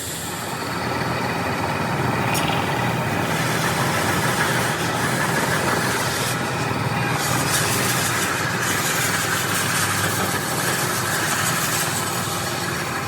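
A machine running steadily, with a low engine-like hum and a noisy upper layer that comes and goes.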